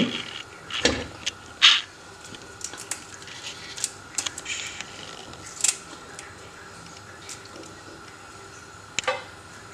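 Scattered light rustles and small clicks of kitchen handling as fresh herbs are picked up and added to a pot of water. There is a soft knock about a second in, the loudest rustle just after, and another sharp rustle near the end.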